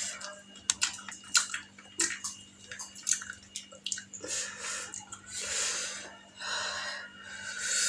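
Wet mouth clicks and smacks from eating hot chilli, then three hissing breaths drawn in through the mouth in the second half, as of someone whose mouth is burning.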